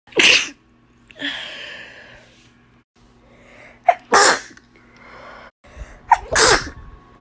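A person sneezing three times, about two to three seconds apart, the last two each with a quick sharp breath in just before the burst. A long breathy exhale follows the first sneeze.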